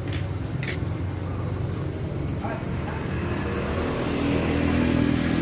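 A motor vehicle's engine running close by, a steady low rumble that grows louder and more tonal over the last couple of seconds, with a couple of short, sharp clicks or chirps in the first second.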